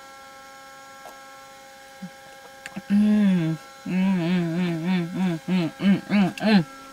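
A woman humming a wordless tune with a wavering pitch, starting about halfway through and ending in several short rising-and-falling notes, over a faint steady electrical hum.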